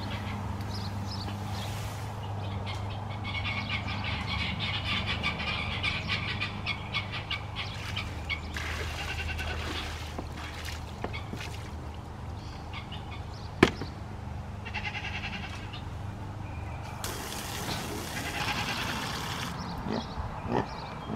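Water running from a garden hose into a pan in a livestock pen, in several spells, with one sharp knock about two-thirds of the way through.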